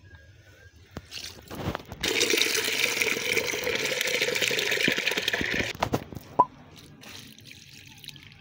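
Water from a tap running into a plastic jug, filling it: a steady hiss and splash that starts abruptly about two seconds in and stops nearly four seconds later, followed by a few small drips and knocks.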